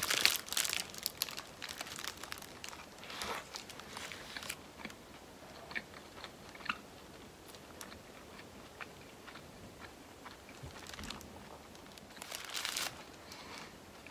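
Close-up crunching and chewing of a bite of a McDonald's teriyaki-egg pork cutlet burger, the crisp fried breading crackling. The crackle is loudest and densest just after the bite and thins out into quieter chewing, with a short louder burst of crackle near the end.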